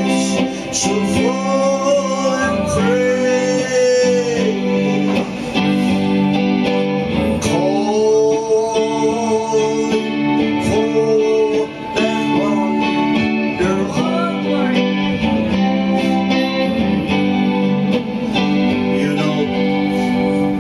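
Music: a guitar-backed song with a singing voice carrying long, sliding melodic lines.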